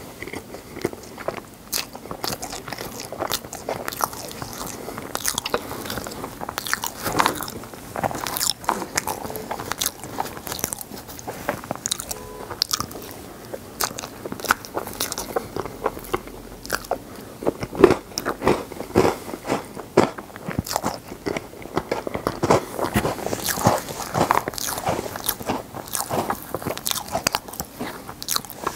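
Close-miked chewing and crunching of an Oreo-cookie-and-cream ice box dessert, with many irregular crisp crunches.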